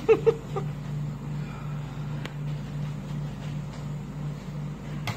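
Steady low machine hum with a slow pulsing beat, like a computer or fan running in the room. Two short loud sounds come right at the start, and a few faint clicks follow.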